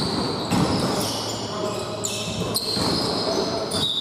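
A basketball bouncing on an indoor court, echoing in a large hall, with short high-pitched squeaks among the bounces.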